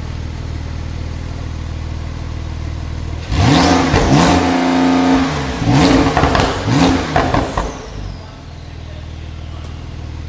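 Porsche 992 Turbo S twin-turbo flat-six through a Capristo exhaust with 200-cell catalysts. It idles for about three seconds, then is revved hard with a rising pitch and held briefly. A few more quick revs follow before it settles back to idle about eight seconds in, with a faint falling whistle as the revs drop.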